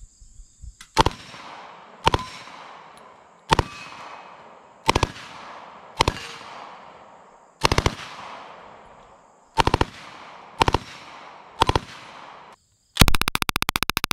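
Thompson 1928 submachine gun in .45 ACP firing on a range: single shots and short two- or three-round bursts about a second apart, each followed by a decaying echo. Near the end comes a long, rapid full-auto burst of nearly two seconds.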